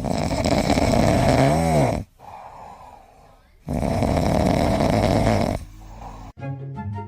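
A dog snoring loudly in its sleep: two long, rasping snores about two seconds each, with a quieter breath between them. Music starts suddenly near the end.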